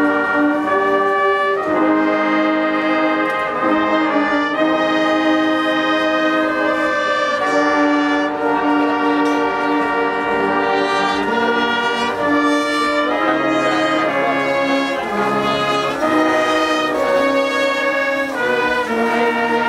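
A brass orchestra playing sustained chords, trumpets and trombones together, the harmony shifting every second or two.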